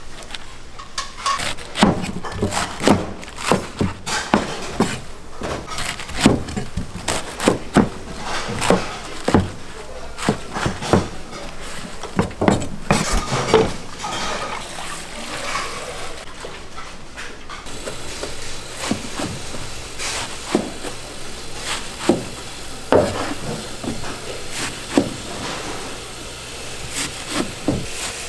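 Wet napa cabbage being handled and tossed by hand in a stainless steel sink: irregular crisp crunches and rustles of the leaves.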